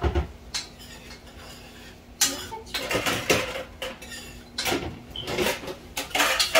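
Long-handled metal spoon stirring vermicelli in a large metal pot on the stove, scraping and knocking against the pot's sides and bottom in irregular clattering strokes that start about two seconds in.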